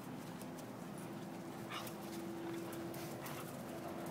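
Two Dobermans playing, making soft dog noises, with short sounds about two and three seconds in, over a steady background hum.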